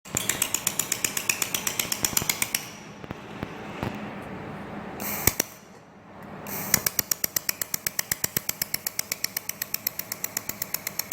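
Pulsed xenon-lamp laser welder firing on stainless steel: a fast, even train of sharp snaps, about nine a second, over a low steady hum. The snaps stop after a couple of seconds. A single louder crack comes a little past five seconds in, and a second run of snaps starts near seven seconds.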